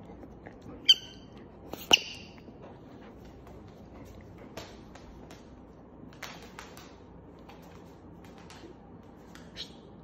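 Dog at play with a rubber chew toy: two short, high squeaks about a second apart near the start, then a few faint taps and clicks.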